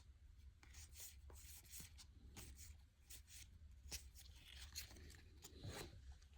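Faint rustling and soft clicks of baseball trading cards being handled and slid against one another.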